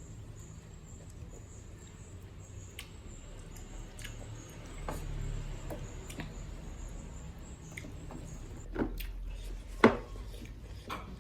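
Close-miked eating sounds: chewing and wet mouth smacking, with scattered soft clicks and one sharper click near the end, over a low steady hum.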